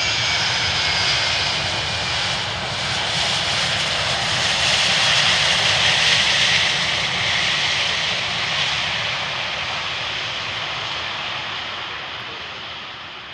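Boeing 757-200 jet airliner's engines on the landing rollout: a loud, steady rushing roar that swells to its loudest about halfway through as the plane passes, then fades as it rolls away.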